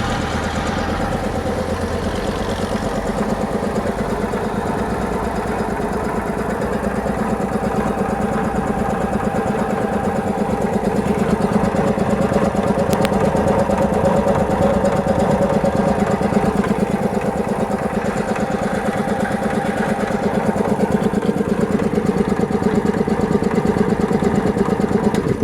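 Air compressor running steadily under load, getting slightly louder as it pumps, then cutting out abruptly near the end as its automatic pressure cut-off shuts it off.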